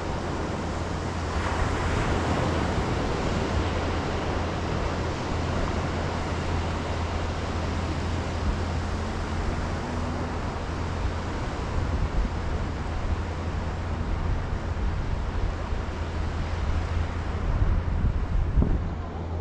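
Wind blowing across the microphone with a steady low rumble, over the continuous hiss of surf washing on the beach; the gusts get stronger near the end.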